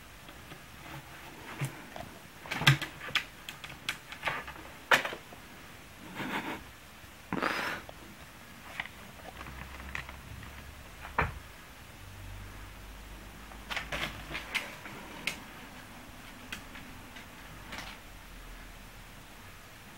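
Irregular clicks and knocks on a wooden cabinet as the small plastic caps covering its screws are pushed and pawed at by a cat, with a short scrape about seven and a half seconds in.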